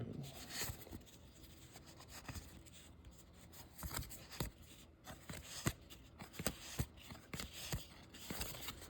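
Baseball trading cards being handled and flipped through by hand: faint, scattered clicks and soft sliding scrapes, coming more often in the second half.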